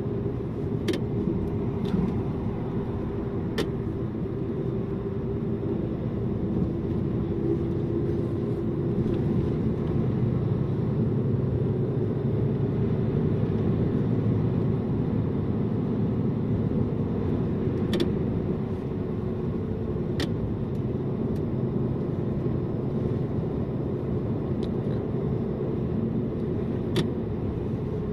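Loaded heavy truck driving, heard from inside the cab: a steady engine drone over road noise, swelling a little partway through. A few sharp clicks or rattles are scattered through it.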